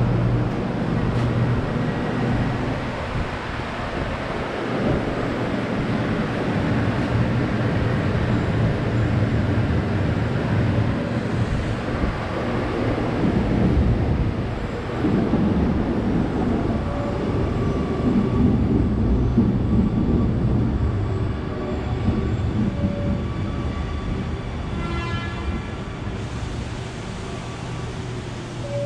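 Amsterdam metro train running at the station platform: a steady low rumble of wheels and motors, with a brief higher multi-note tone near the end.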